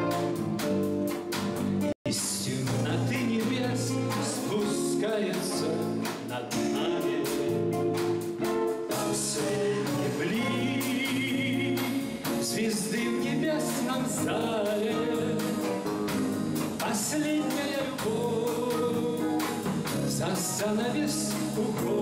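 Live band playing a slow jazz ballad: acoustic and electric guitars, bass guitar and drums with cymbals, under a man's singing voice. The sound cuts out for a split second about two seconds in.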